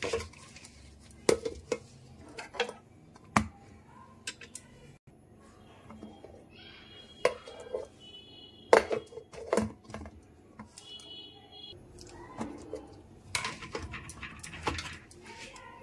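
Irregular clinks and sharp knocks of a steel mixer-grinder jar and its lid being handled on a kitchen counter.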